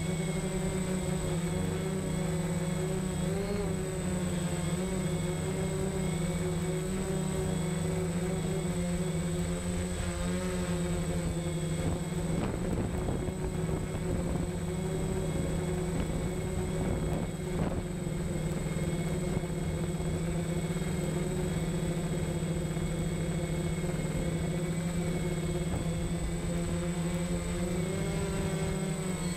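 DJI Phantom quadcopter hovering and drifting, its motors and propellers making a steady buzzing hum with a thin high whine above it, heard close up from the camera on the drone. The pitch wavers a little as it shifts position, around three seconds in and again near the end.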